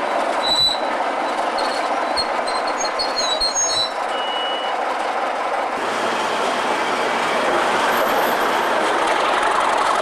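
A Class 33 and a Class 37 diesel locomotive working together, running past with a steady engine and wheel rumble, with a few short high squeals in the first four seconds. The sound changes about six seconds in as the pair, Class 37 leading, approaches again, getting a little louder near the end.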